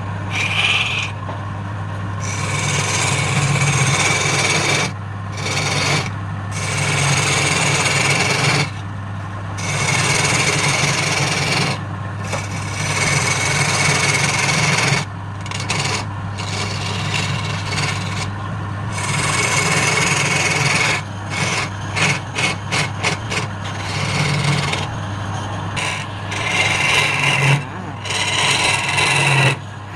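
Wood lathe running with a steady hum while the spinning wood is scraped in long passes, with short breaks where the contact lifts off. Around the middle comes a run of quick short touches, about four a second.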